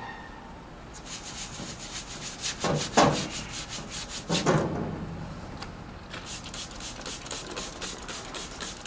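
A rag is rubbed quickly back and forth over a painted metal street sign, wiping off spray-paint graffiti that a remover has loosened, at about five strokes a second. Two heavier swipes stand out a couple of seconds in and again about halfway, and there is a short pause before the scrubbing picks up again.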